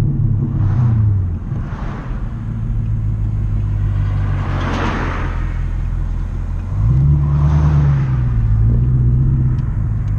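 2020 Camaro SS's 6.2-litre LT1 V8 with long-tube headers running under way. Its note rises and settles briefly near the start and again about seven seconds in, with a rushing swell of noise about halfway through.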